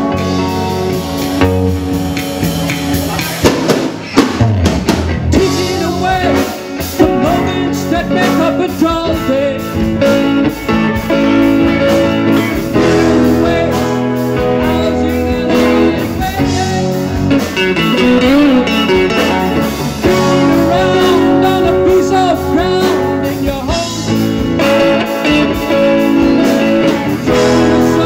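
Live rock band playing a song on electric guitars, bass guitar and a drum kit, loud and continuous.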